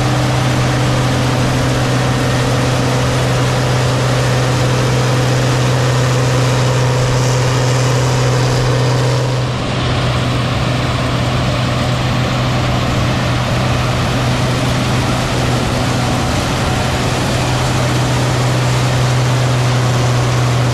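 Steady machinery running: a strong, constant low hum over a dense rushing noise, with a brief dip about halfway through.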